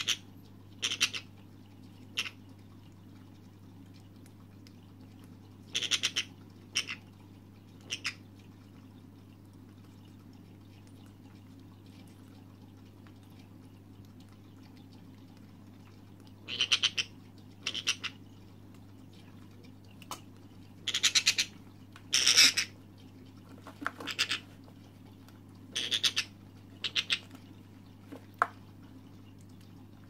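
Two-month-old Senegal parrot chick giving short begging calls as it is hand-fed formula from a pipette. The calls come in clusters, each under a second long, with a quiet stretch of about eight seconds in the middle.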